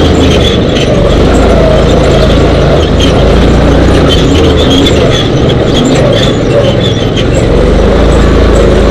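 Dune buggy engine running hard as the buggy drives over a sandy desert trail, very loud and close to distorting, with scattered rattles and clicks from the jolting frame.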